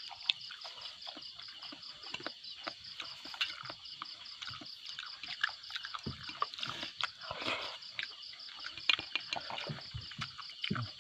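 Steady, high, fast-pulsing chorus of calling wildlife, with scattered small clicks and taps.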